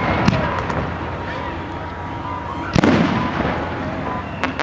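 Aerial fireworks bursting: a sharp crack about a third of a second in, a louder bang near three seconds in that trails off in a rumbling echo, and another pop just before the end.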